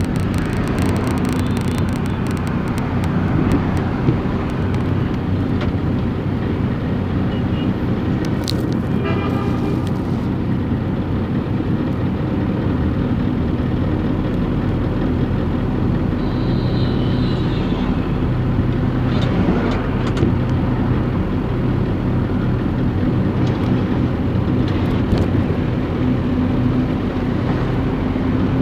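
Steady engine hum and tyre-on-road noise inside a car cruising along a highway, with a few brief higher-pitched sounds now and then.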